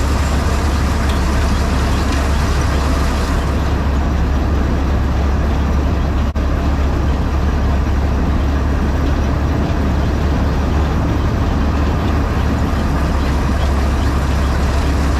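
John Deere 4400 combine running, a loud steady machine noise with a strong low hum, briefly dipping about six seconds in.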